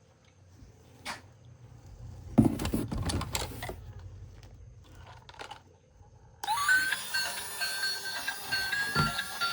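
Clicks and rattling of plastic toy vehicles being handled, loudest about two and a half to four seconds in. Background music starts suddenly about six and a half seconds in.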